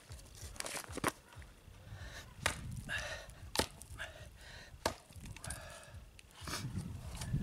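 A large knife striking wood: several sharp chopping blows about a second apart.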